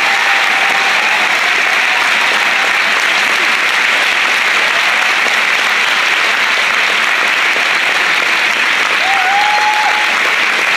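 A large theatre audience applauding, with dense, steady clapping throughout.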